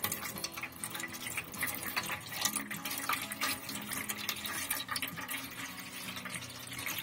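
Water being poured into a shallow plastic tray of peat, splashing and trickling continuously.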